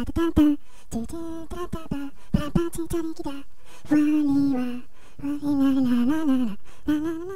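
A cappella vocal music: one voice singing short pitched notes in quick succession, with beatboxed mouth clicks and pops between them. About halfway through come two longer held notes, the second bending up and then sliding down.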